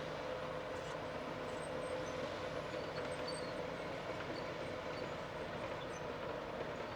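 Caterpillar D8T bulldozer's diesel engine running steadily, with a constant drone.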